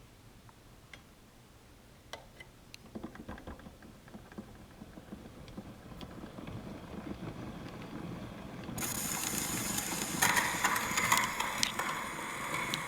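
Triple-spring motor of a Gramophone & Typewriter Senior Monarch gramophone being hand-wound, a run of ratchet clicks. About nine seconds in, the reproducer's needle goes onto the spinning shellac 78 record, and surface hiss and crackle come through the horn.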